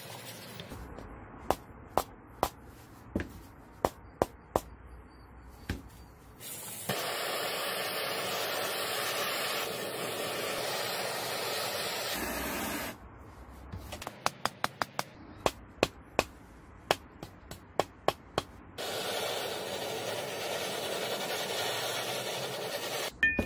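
Handheld gas blowtorch flame hissing steadily, twice for several seconds each, on an old angle grinder's housing. Each run of flame comes after a series of sharp clicks.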